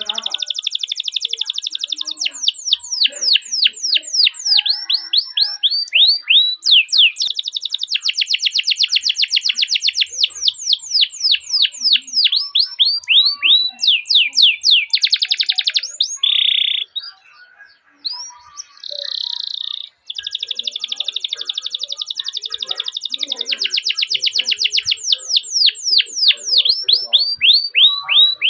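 Domestic canary singing: long, high-pitched rolls of rapidly repeated notes alternating with runs of quick downward-sweeping 'cuit cuit' whistles, with a short break in the song about two-thirds of the way through.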